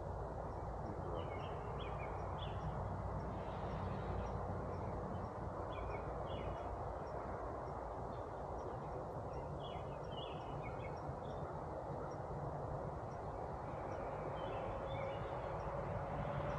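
Steady hum of Carniolan honey bees around an open hive, with birds chirping now and then.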